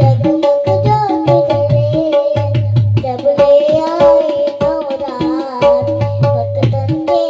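Tabla playing a steady devotional jas rhythm, deep bass-drum strokes under the ringing, pitched treble drum. A wavering sung melody line comes over it about a second in and again around the middle.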